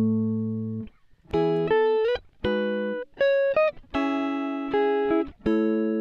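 Background music of plucked guitar: chords struck one after another, each ringing out and fading, with a brief gap about a second in.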